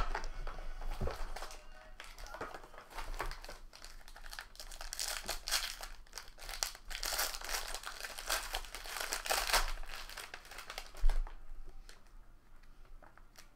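Plastic wrapping and card-pack packaging crinkling and tearing as a trading-card box is opened by hand. The crackling is densest through the middle, with one knock about eleven seconds in, then quieter handling near the end.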